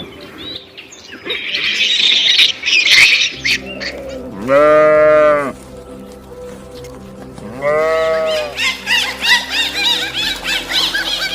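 A cow mooing twice, each moo about a second long, the first about four and a half seconds in and the second about three seconds later, over a steady music bed. Rapid clucking begins near the end.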